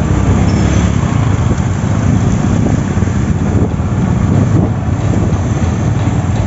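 Steady low engine rumble of a moving two-wheeler, with wind buffeting the microphone as it rides along.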